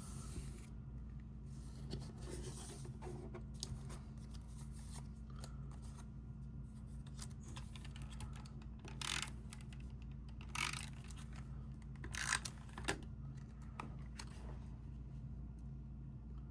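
Cardstock being handled: a few short, faint paper rustles and scrapes, the clearest about nine, ten and a half and twelve seconds in, over a steady low hum.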